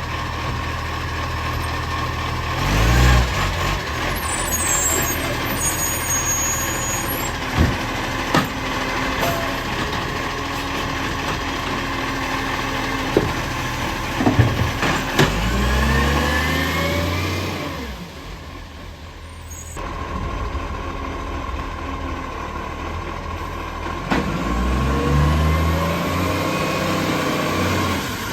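Garbage truck engine with a leaking exhaust running steadily and revving up three times, the pitch rising each time, with several sharp knocks and clanks in between.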